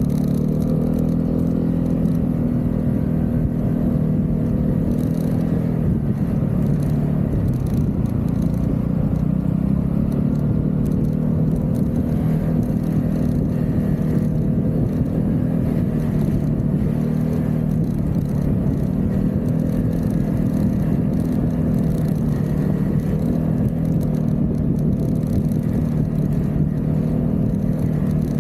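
Vespa GTV 300 scooter's single-cylinder four-stroke engine running under way at a fairly steady speed, its pitch dipping slightly and recovering a few times as the throttle eases and opens.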